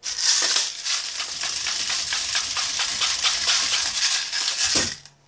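Airsoft BBs rattling through an Odin speedloader as it is cranked to fill an empty magazine: a dense, steady rattle of tiny clicks that starts abruptly and stops after about five seconds with a thump.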